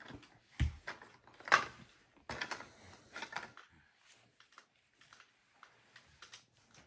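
Clicks, taps and knocks of hard plastic toy pieces being handled, with a low knock about half a second in and a sharper, louder knock about a second and a half in, then fainter scattered ticks.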